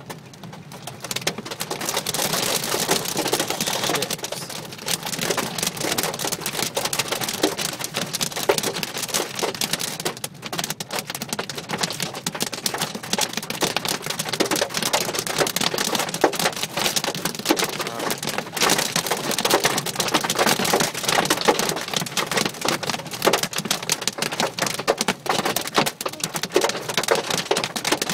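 Heavy rain and hail beating on the roof and windshield of a 2015 Nissan Murano, heard inside the cabin: a dense, steady hiss full of sharp ticks, growing louder about two seconds in.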